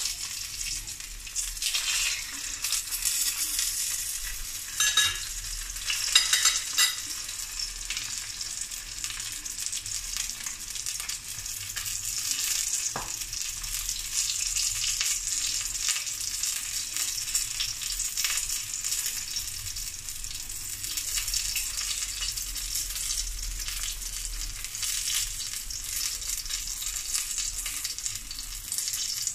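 Threadfin fish fillet sizzling as it pan-fries in hot oil in a wok, a steady hiss, with a few sharp clicks about five to seven seconds in.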